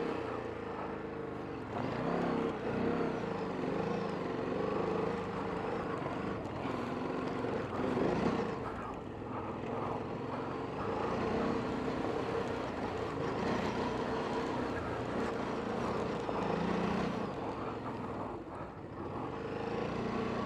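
Off-road motorcycle engine revving up and down in repeated surges, over a steady engine note, as a rider fights up a steep loose climb with no run-up for momentum.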